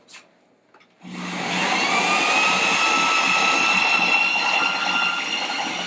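Electric drill driving a grain mill's rollers as it cracks malted barley: it starts about a second in, its whine rising briefly as it spins up, then runs steadily over the grinding noise of the grain.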